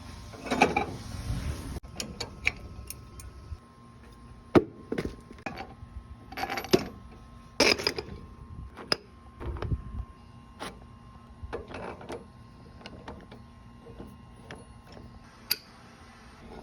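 Irregular knocks, clicks and clatter of hands working with tools and parts, wood and metal, with a longer scraping, rustling stretch at the start and a dozen or so sharp knocks after it at uneven intervals.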